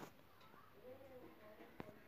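Near silence: room tone, with a faint click at the start and another near the end, and faint wavering tones in between.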